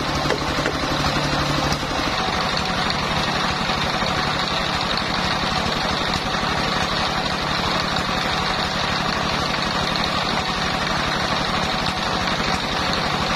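Single-cylinder diesel engine running steadily, driving a homemade circular sawmill by belt, with no wood being cut.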